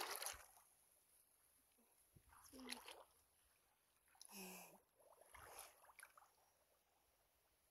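Near silence, broken by four faint, short, pitched calls spaced a second or two apart.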